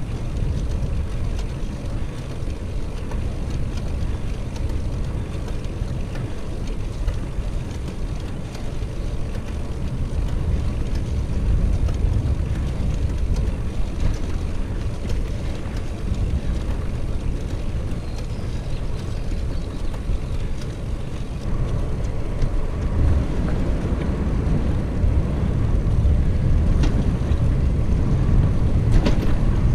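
Wind buffeting the camera microphone on a moving bicycle, a steady low rumble of rushing air mixed with tyre noise on pavement. It grows a little louder in the last third, with a few faint clicks near the end.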